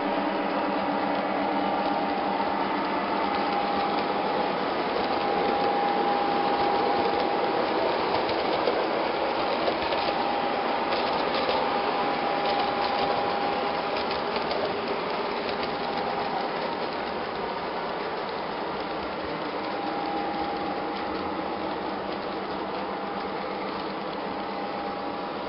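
O gauge toy trains running on three-rail track: a steady dense rattle and clatter of wheels on the rails, with a whining tone that fades in and out.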